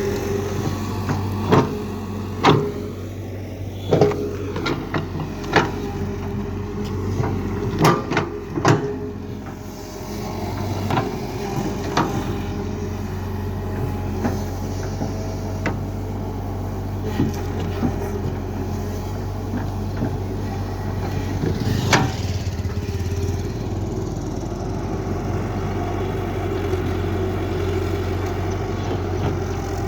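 Caterpillar excavator's diesel engine running steadily, with a series of sharp knocks in the first ten seconds and another a little past the middle as the machine works.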